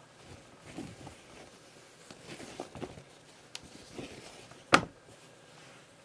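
Linen tote bag being handled and spread flat by hand: soft, irregular fabric rustling, with a single sharp knock about three-quarters of the way in.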